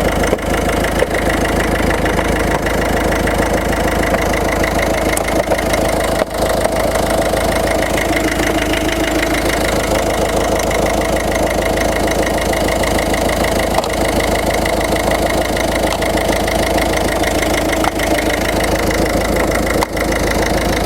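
Car engine idling steadily after being jump-started, with a few light clicks over it.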